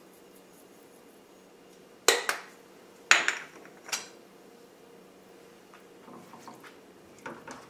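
Kitchenware set down and knocked together: a few sharp clinks and clatters about two to four seconds in. Near the end, faint scraping as a spatula starts stirring tomato sauce in a skillet.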